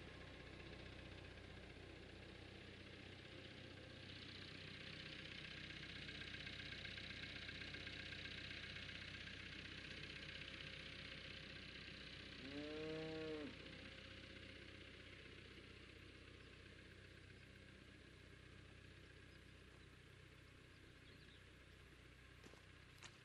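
Massey Ferguson 265 tractor's diesel engine running faintly, swelling a little and then fading away as the tractor moves off. About halfway through, a cow moos once, for about a second, rising then falling in pitch; this is the loudest sound.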